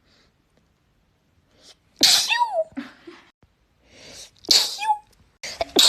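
A person sneezing repeatedly: three sneezes about two and a half seconds apart, the last near the end. Each is a sharp burst ending in a high, squeaky voiced note that falls in pitch, with a short intake of breath before the second.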